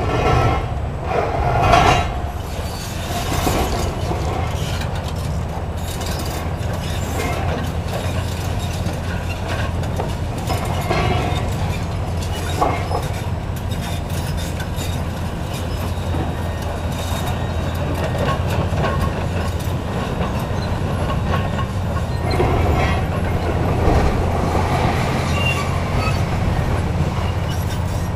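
Long-reach demolition excavator's diesel engine running steadily under load while its demolition jaws crunch and tear a concrete slab. Breaking concrete and falling debris clatter in louder bursts near the start, once briefly in the middle and again near the end.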